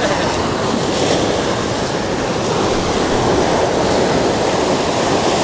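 Ocean surf washing against a rocky shore: a steady, loud rush of waves that does not let up.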